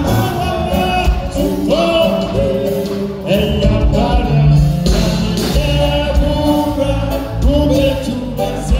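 Live gospel music: a man sings lead into a microphone over a band with guitar and keyboard, amplified through stage speakers.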